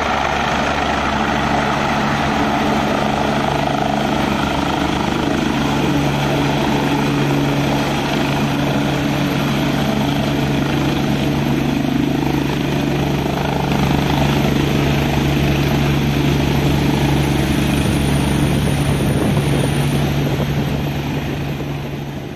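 Helicopter landing on a helipad, its rotor and turbine engine running loudly and steadily, fading out near the end.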